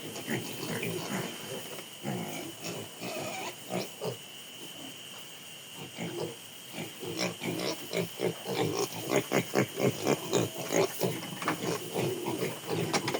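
Piglets grunting in short, irregular grunts that come thicker and louder from about seven seconds in.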